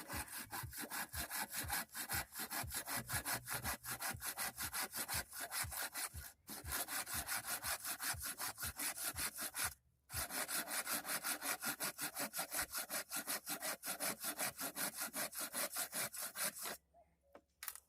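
Hand saw cutting firewood in rapid, even back-and-forth strokes, pausing briefly twice and stopping shortly before the end.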